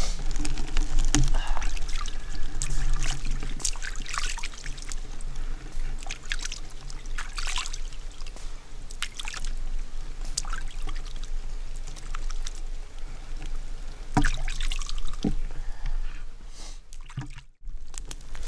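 Shallow creek water trickling and splashing as hands rinse something in it, with irregular small splashes.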